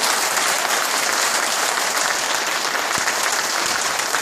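An audience of diners applauding, a steady clapping at an even level.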